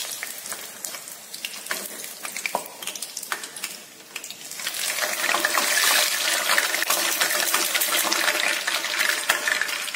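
Hot cooking oil sizzling in a frying pan as half-fried purple eggplant pieces are lifted out with metal tongs onto a wire-mesh strainer. Sharp clicks of the tongs in the first few seconds, then the sizzling grows louder and denser about five seconds in.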